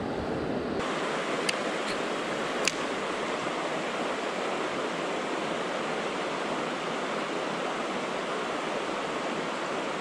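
Steady rushing of a mountain stream running over rocks, with two sharp clicks in the first few seconds.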